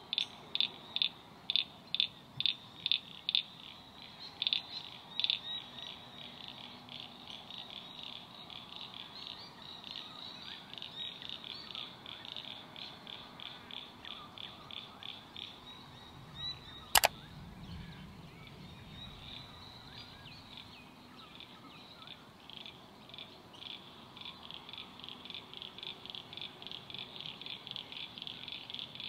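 Wetland animal chorus of high repeated chirps. It starts as a slow series of loud chirps about two a second, then settles into a quicker, softer pulsing that grows stronger near the end. A single sharp click sounds a little over halfway through.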